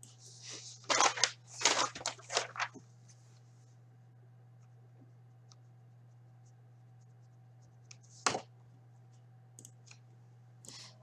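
Rustling, crinkling handling noises on a table: a quick run of short rasps in the first three seconds and one more sharp one about eight seconds in, over a steady low hum.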